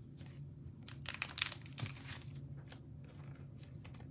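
Trading cards handled and set down on a table: light rustling and a few short clicks, bunched about a second to two seconds in, the loudest about a second and a half in.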